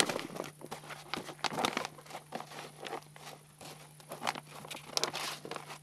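A dried sheepskin bag (motal) crackling and crinkling as it is squeezed and twisted by hand: a steady run of irregular stiff crackles.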